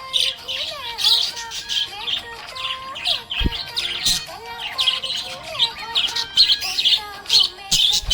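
Budgerigar chirping and chattering continuously in quick, overlapping high chirps and short warbling notes, with a single low thump about three and a half seconds in.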